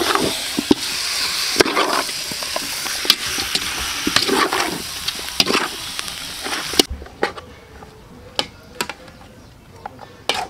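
Chicken wings and curry paste sizzling in oil in a metal pot while a spatula stirs them, scraping and knocking against the pot. About seven seconds in the sizzle drops away, leaving only occasional clicks of the utensil on the pot.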